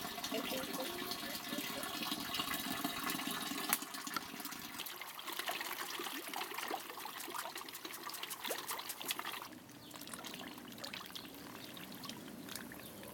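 Water trickling and pouring into a plastic drum fish pond, with small splashes. The sound changes about five seconds in and again near nine and a half seconds.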